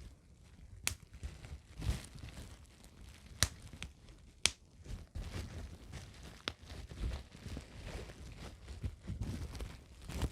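Plastic bubble wrap handled close to the microphone, crinkling and rustling, with four sharp single pops as bubbles burst.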